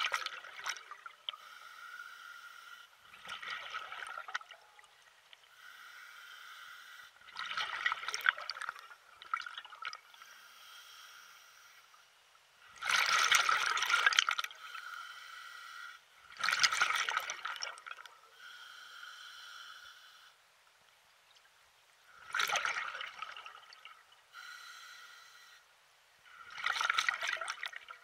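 Lake water splashing in repeated surges, a swell about every four to five seconds. A fainter steady hum sounds between the surges.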